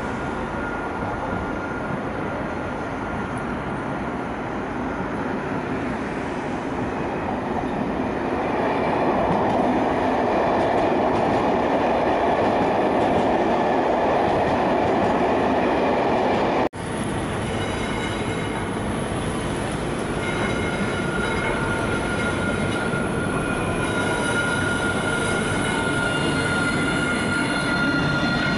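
Alstom Citadis tram rolling along its rails into a stop, its running noise getting louder as it draws near. After a sudden cut, a tram close by runs with a steady high whine over the rolling noise.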